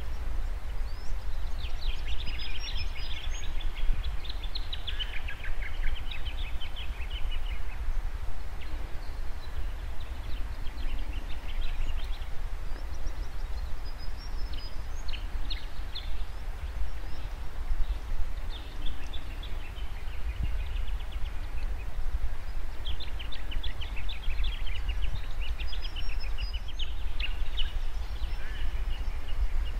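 Birds singing in several bouts of rapid repeated notes, over a steady low rumble.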